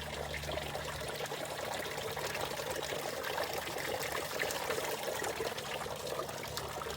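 Garden water fountain running, a steady splash of falling water.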